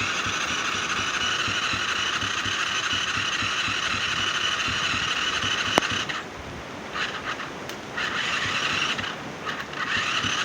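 ATV engine cranking on its starter but not firing. One long crank cuts off about six seconds in, followed by a few shorter cranking bursts. The engine turns over without catching, even on fresh fuel.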